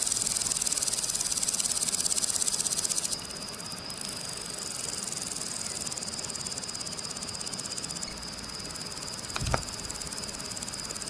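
Grasshopper stridulating: a continuous, fast, high-pitched buzzing trill that drops in loudness about three seconds in. A brief low knock sounds near the end.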